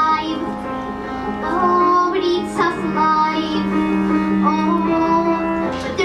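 A young girl singing, holding long notes, with instrumental accompaniment.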